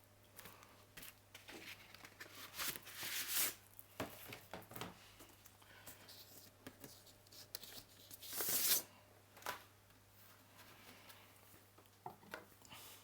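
Irregular rustling and crackling noises, two louder swishes among them, over a faint steady low hum; no music yet.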